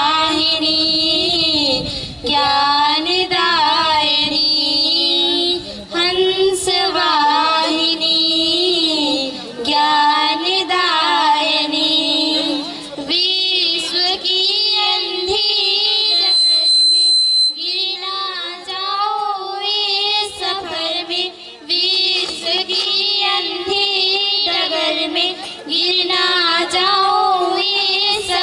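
Two girls singing a Hindi prayer song to the goddess Saraswati into handheld microphones, in long drawn-out phrases with sliding pitch.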